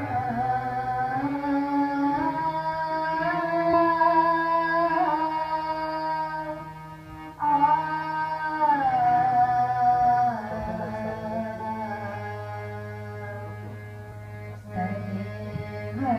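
Harmonium playing a slow melody of long held notes over a steady low drone, with a voice singing wordless held notes that glide between pitches.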